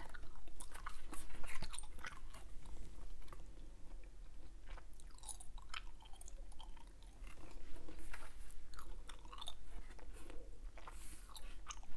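Hubba Bubba bubble gum being chewed right at a clip-on microphone: irregular wet smacks and clicks of the mouth working the gum.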